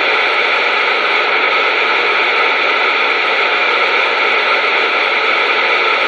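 CB radio receiver hissing with steady static between transmissions, no station coming through.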